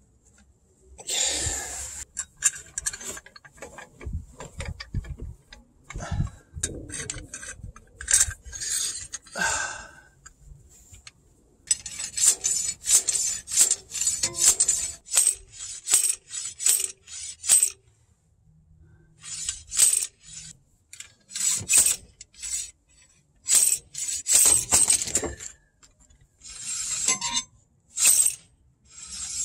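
Hand ratchet clicking in repeated bursts, with metal clinks, turning the screw of a pilot bearing puller.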